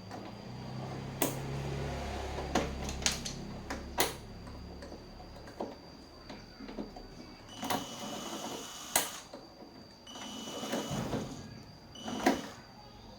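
Irregular sharp clicks and knocks over a faint steady high-pitched tone, with a low hum during the first few seconds.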